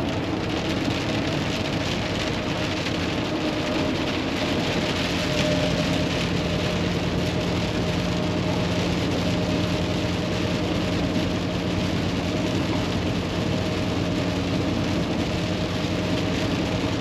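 Inside the cab of a 2016 Kenworth T680 at highway speed: the steady drone of its PACCAR MX13 diesel engine mixed with road noise and rain on the windshield.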